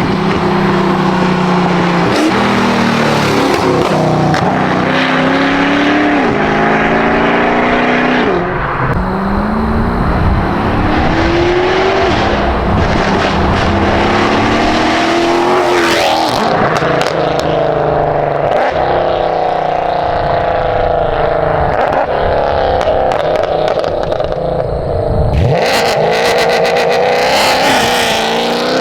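Mercedes-Benz W204 C63 AMG's naturally aspirated V8 running through its aftermarket exhaust, accelerating hard through the gears. The pitch climbs and drops back at each upshift, about every two seconds, several times in a row.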